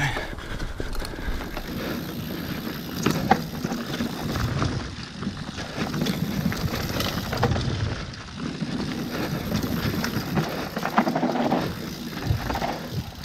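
Mountain bike riding fast down a dirt forest singletrack: steady tyre rumble on the trail, with frequent short clatters and knocks from the bike over bumps.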